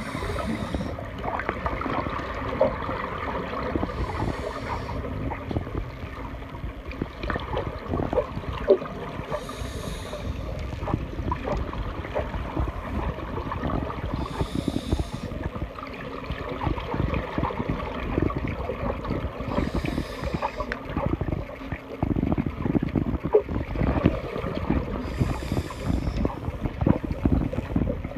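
Underwater recording of a scuba diver breathing from a small pony-tank regulator: a short burst of exhaled bubbles about every five seconds, over a constant low rumble and crackle of water against the camera housing.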